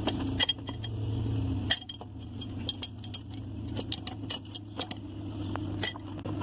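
Light metallic clinks and taps as a scooter's finned aluminium cylinder is worked up and off its studs during a top-end teardown, over a steady low hum.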